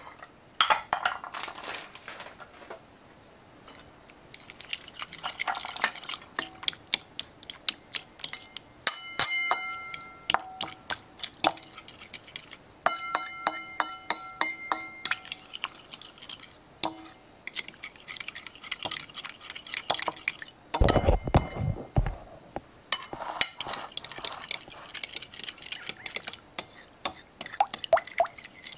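Metal fork whisking pumpkin pie filling in a ceramic bowl: fast clinking of the fork against the bowl, with wet swishing of the batter between strikes. In two short stretches a ringing tone sounds with the strikes, and a low thud comes about three-quarters of the way through.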